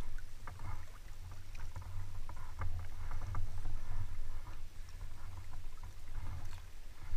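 River water lapping and splashing against a small boat's hull, in scattered light splashes over a steady low rumble.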